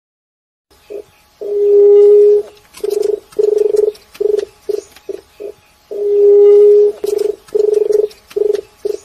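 Juriti (Leptotila ground dove) cooing: a long, low coo followed by a run of shorter coos that come quicker and quicker, given twice.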